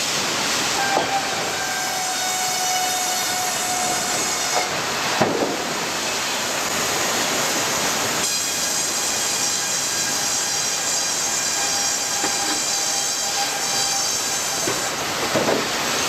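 Sawmill machinery running: a steady, loud mechanical din with several thin high whining tones over it. There is a knock about five seconds in, the high whine grows stronger at about eight seconds, and more knocks come near the end.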